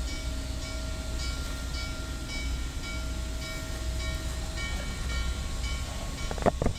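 Norfolk & Western 611, a J-class 4-8-4 steam locomotive, working a passenger train: a low rumble with an even beat of exhaust chuffs, about two and a half a second. Near the end come two sharp knocks, the loudest sounds here.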